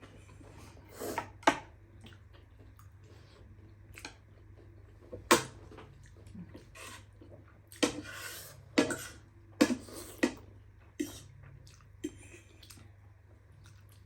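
Noodles being eaten: utensils clicking sharply against a bowl about ten times, scattered and irregular, with quieter chewing between.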